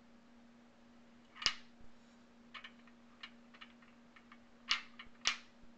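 Wooden beads on a bead maze toy clacking against each other and the wooden frame as they are pushed along the wire loops: three sharp clacks, about a second and a half in and twice near the end, with lighter clicks between.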